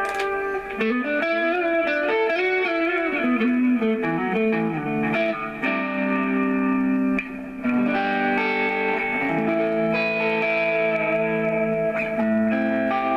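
Ibanez Jem 70V electric guitar played through a Line 6 POD HD500 on its 'normal' tone (Tube Screamer overdrive, delay and spring reverb, no chorus) and heard through a Laney combo amp. A lead line with bent and wavering notes gives way to held notes and chords left ringing.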